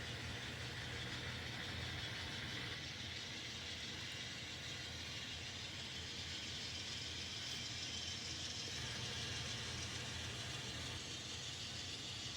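N scale model train running on the layout track: a steady whir of the locomotive motors with the rattle of wheels on rail, no engine sound from the decoder.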